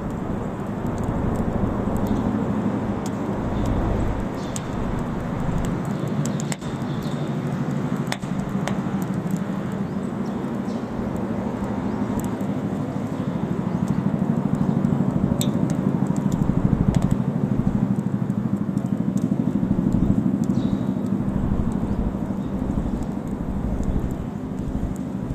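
Wood fire burning: a steady low rumble of flame with scattered sharp crackles and pops from the burning wood.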